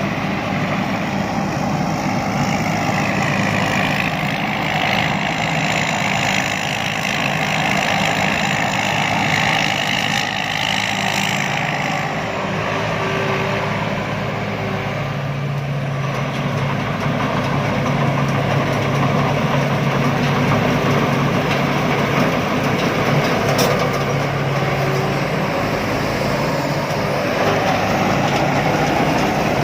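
Rice combine harvester's diesel engine running steadily under load, with the steady hum shifting slightly in pitch about halfway through.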